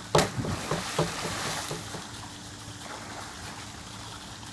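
A person landing a cannonball in a swimming pool: one loud splash about a quarter second in, followed by a few smaller slaps and water churning that dies away over about two seconds.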